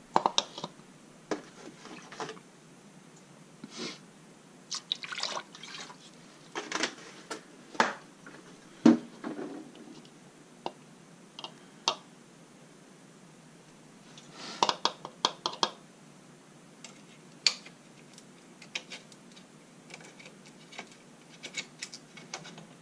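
Coolant poured through a plastic funnel into a car radiator's filler neck, trickling and dripping in short spells. Scattered clicks and knocks of the funnel being handled come throughout, the sharpest one about nine seconds in and a quick run of them around a quarter of a minute in.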